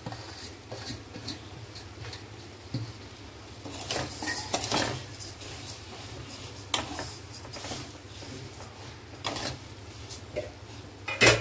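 Metal slotted spatula scraping and clinking against a metal kadhai as dry roasted vermicelli and vegetables are stirred together. The clinks come irregularly, with a loud clank near the end.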